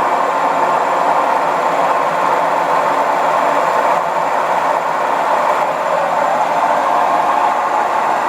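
Zanussi washing machine running with a loud, steady mechanical noise, the sign of a part that failed after 16 months of use.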